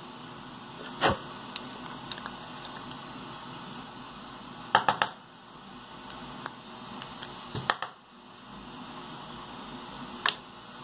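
Metal hand tools and small plastic parts clicking and clattering against each other and the tabletop during hand assembly: a few sharp isolated clicks and a quick triple click about halfway, over a steady background hiss.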